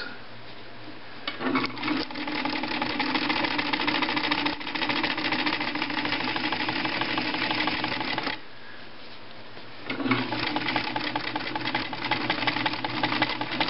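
Pfaff 139 sewing machine running fast with its needle stitching rapidly, free-motion darning with the feed dogs lowered. It starts about a second in, stops for a moment at about eight seconds, then starts again and runs on.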